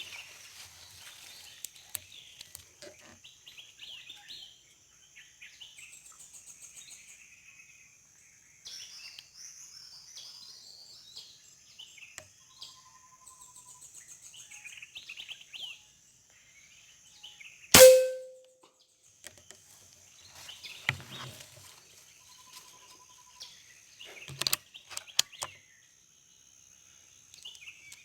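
Forest birds chirping and calling over a steady high whine, with one sharp air-rifle shot about two-thirds of the way through, the loudest sound, ringing briefly after it. A few softer clicks follow.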